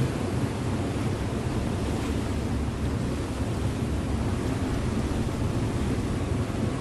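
River motor ship under way: a steady low engine rumble mixed with the rush of water along the hull.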